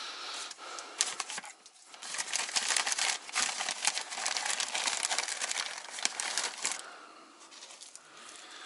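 Dense crackling and rustling handling noise for about five seconds, dying away near the end.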